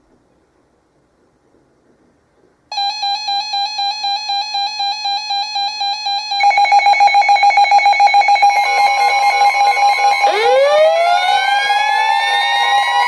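Electronic weather-alert alarm tones announcing a severe thunderstorm warning. After a short silence a pulsing beep starts abruptly, a second faster pulsing tone joins a few seconds later, and near the end several rising wails wind up over a steady tone, all layered together.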